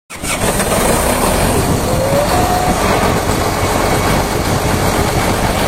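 Komatsu HB365 excavator's diesel engine at high idle, its turbocharger making a loud, steady rubbing noise, with a faint whine rising briefly about two seconds in. This is the abnormal turbo noise, a severe rubbing sound.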